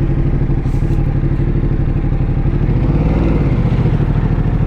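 Ducati motorcycle engine running at low road speed in traffic, its pitch rising briefly about three seconds in and then settling back.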